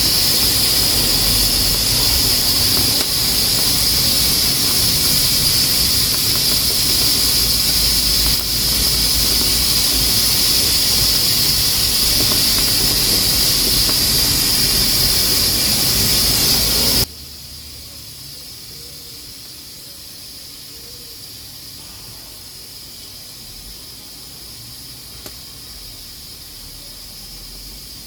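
Pressure cooker steam valve hissing steadily with a high whistling edge as beans cook under pressure, then about two-thirds of the way through it drops suddenly to a much fainter hiss. One small click near the end.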